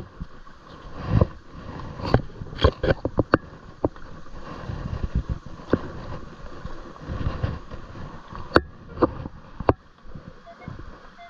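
Irregular sharp clacks of rocks knocking together in shallow water, over the steady rush of a creek.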